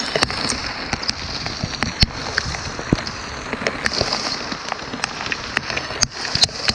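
Hail and rain coming down: many sharp, irregular ticks of hailstones striking over a steady hiss of rain.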